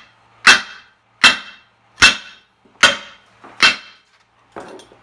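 Sledgehammer striking the end of a metal tube five times, a little under a second apart, each blow ringing briefly. The blows are pounding the tube end into shape to match the other side for welding.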